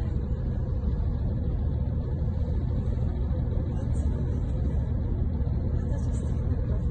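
Steady low rumble inside a halted passenger train carriage: the train's diesel engine idling.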